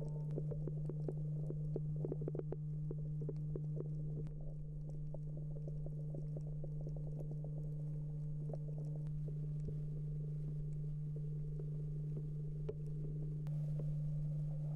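Underwater ambience over a coral reef: a steady low hum with fainter steady tones above it and an irregular crackle of short clicks throughout.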